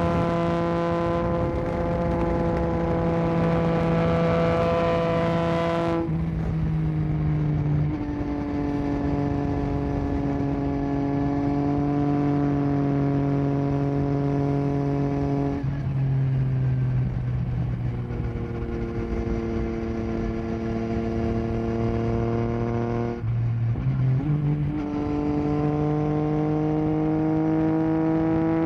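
Yamaha Tracer 9 GT's 890 cc inline-three engine through an unbaffled Akrapovic full exhaust, running at steady revs under way. The note drops in pitch twice, about 6 and 16 seconds in, as with upshifts; it cuts out briefly around 23 seconds and comes back at a higher pitch.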